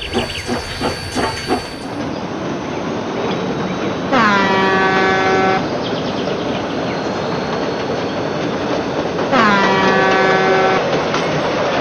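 Train running with a steady rumble and clatter, sounding its horn twice, each blast about a second and a half long. A quick run of clicks opens the sound.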